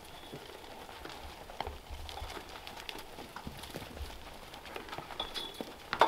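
Goats eating at a feed trough: scattered light knocks, clicks and shuffling of hooves and muzzles against the trough and bedding.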